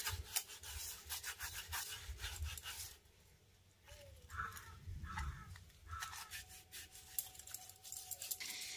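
Half a lemon dipped in salt being rubbed over a tarnished brass plate: faint gritty scrubbing strokes, with a short pause about three seconds in.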